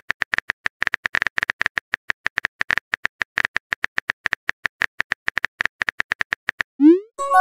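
Phone keyboard typing sound effect: rapid, even key clicks, about eight a second, as a text message is typed. Near the end the clicks stop and a rising swoop and a chime play as the message is sent.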